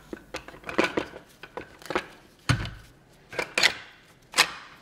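Bar clamps and MDF press blocks being handled on a wooden workbench: a series of separate knocks and clicks as the clamp jaws are slid and closed and the blocks are set in place, with a duller thump about halfway through and the loudest knock near the end.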